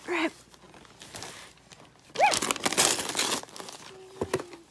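Gift wrapping paper being crumpled and torn, with a loud burst of rustling and ripping lasting about a second from about two seconds in.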